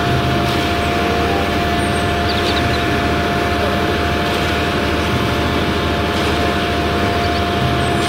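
Concrete mixer truck running steadily while its drum discharges concrete down the chute: a constant engine hum with a steady whine held throughout.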